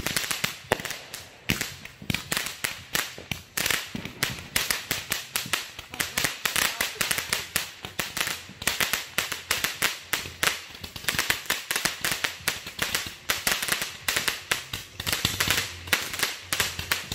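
Ground-launched consumer firework shooting sparks and small bursts skyward: a continuous run of sharp crackling pops, several each second.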